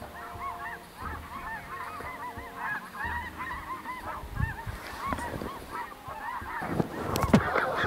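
A large flock of geese calling in flight: a constant clamour of many short, overlapping honks. A sharp click near the end.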